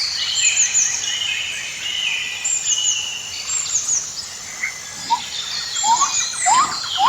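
Rainforest ambience of many birds calling at once: quick high chirps repeating throughout, over a steady insect hiss, with several short rising whistled calls in the last two seconds.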